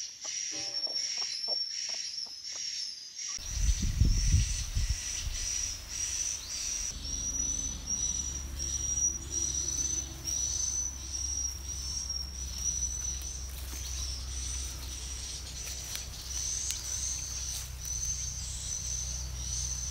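Insects chirping in a steady, high-pitched, pulsing chorus. A low rumble comes in about four seconds in, then settles into a steady low hum beneath it.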